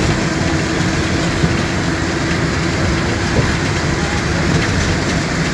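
Road and wind noise from a moving vehicle: a steady rush with a low engine hum underneath.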